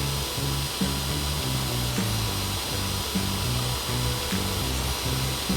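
Cartoon background music with a bass line stepping from note to note, under a continuous whirring power-drill sound effect.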